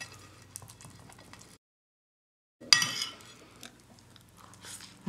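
Fork clicking and scraping on a ceramic plate as a poached egg on toast is cut. The sound drops out completely for about a second, then comes back with a sharper clatter and fainter ticks of cutlery on the plate.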